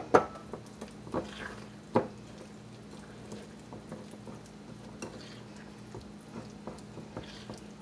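Metal wire whisk stirring thick pancake batter in a glass bowl, with a few sharp clinks of whisk and glass in the first two seconds, then softer scraping strokes.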